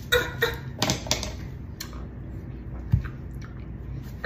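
About half a dozen light clicks and taps, bunched in the first second or so with a last one near three seconds in, over a low steady hum.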